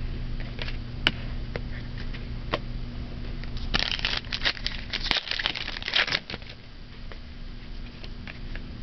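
Trading cards being handled: scattered light clicks and flicks, with a denser stretch of crinkling and rustling from about four seconds in lasting roughly two seconds. A low steady hum runs underneath.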